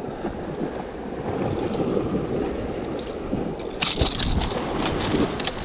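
Sea waves washing against a rocky shore, with wind on the microphone. Starting about four seconds in, a short run of sharp clicks and rustles comes as the landed fish is picked up off the rock.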